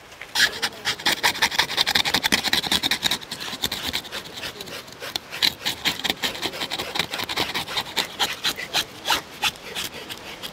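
A knife blade scraped quickly and repeatedly along the skin of a whole tuna, a dense run of rasping strokes several to a second, cleaning the skin before the fish is cut.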